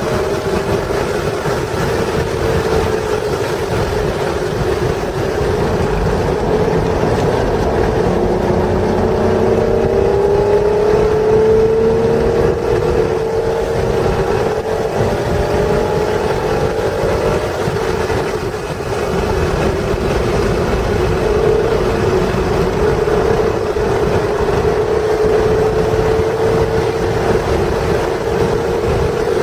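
1996 Acura NSX's 3.0-litre V6 pulling hard at speed, its pitch climbing slowly through long stretches, with a brief drop about two-thirds of the way through, over steady road and wind noise.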